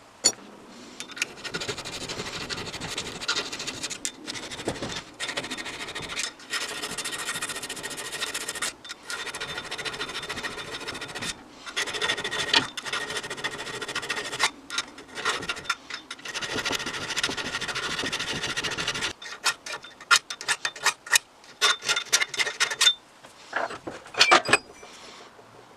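Abrasive hand rubbing on a metal part of a Bahco 176 pipe cutter during restoration, as in sanding or scrubbing off rust. It comes in long steady passes with short pauses. About 19 seconds in it gives way to a run of sharp clicks and light knocks.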